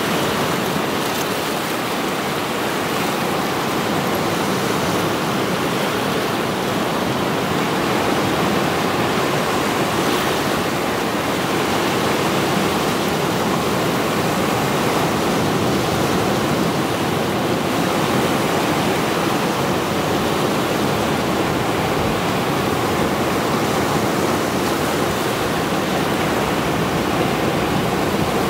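Mediterranean sea surf, rows of waves breaking and washing over shoreline rocks: a steady, dense rush of water with only gentle swells in loudness and no single crash standing out.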